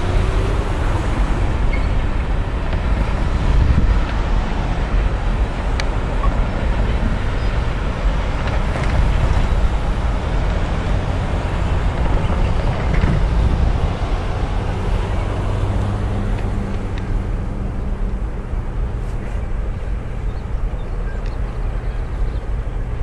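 Freight train's boxcars rolling past on steel wheels: a steady rumble with a few clicks of wheels over the rail, easing off and growing duller over the last several seconds as the end of the train moves away.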